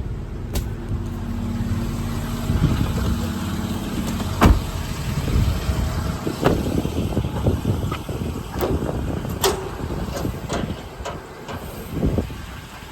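Steady low hum from the idling truck for about the first three seconds, then a string of sharp knocks and clicks, the loudest about four and a half seconds in.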